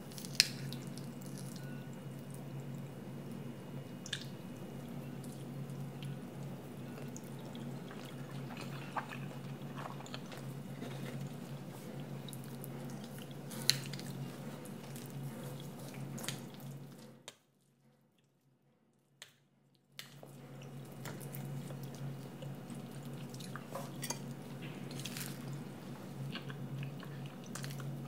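Cutlery clinking now and then against ceramic plates and bowls during a meal, over a steady low room hum. There are a few sharp clinks, the loudest right at the start, and the sound drops out for about three seconds a little past halfway.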